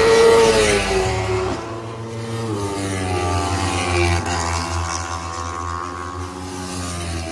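Sport motorcycle engines running hard on a race-track straight. The loudest point comes just after the start, with the engine note falling as a bike goes by; after that the note drops in steps and fades.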